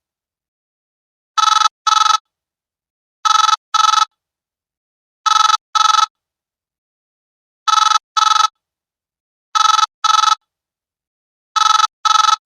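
Old mobile phone ringtone: an electronic double ring of two short, even-pitched beeps in quick succession, repeating about every two seconds, six times.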